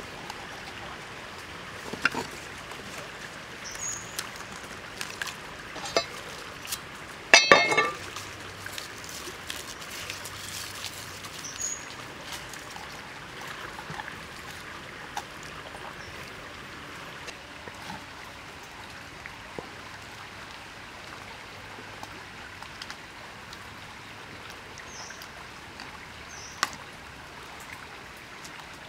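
Steady flowing-water noise, like a small stream trickling, with scattered clicks and knocks over it. A brief burst of rapid clicking about seven seconds in is the loudest sound, and a few faint short high chirps come and go.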